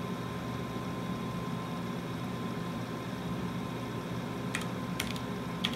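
Steady hum and fan noise from running computer equipment, then a few keystrokes on a terminal keyboard in the last second or so.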